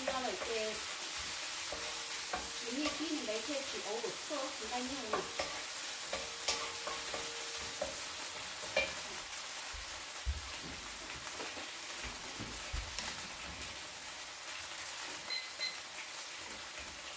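Food frying in a pan, a steady high sizzle, with a few low knocks about ten to thirteen seconds in.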